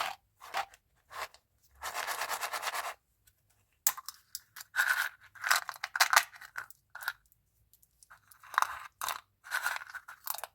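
Chewing gum pack wrapper crinkling and tearing in short irregular bursts, with a longer rapid rip about two seconds in, as the candy packaging is opened and handled.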